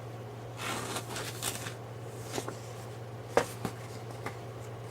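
Plastic and paper packaging of a model kit rustling as it is handled, followed by a few light clicks with one sharper click in the middle, over a steady low electrical hum.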